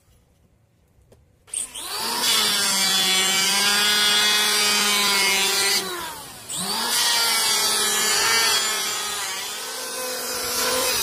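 Electric hand planer switched on about a second and a half in, its motor whining up to speed and running while the blade shaves a wooden board. About six seconds in the motor slows briefly and then picks back up to full speed.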